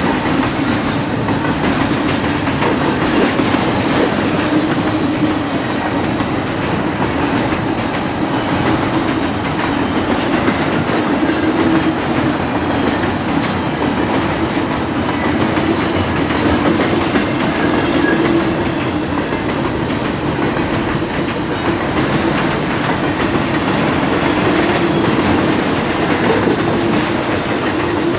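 Canadian Pacific freight train rolling steadily past, its cars' wheels clattering rhythmically over the rail joints with a continuous rumble.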